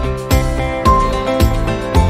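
Background music with a steady beat, about two beats a second, under sustained pitched notes.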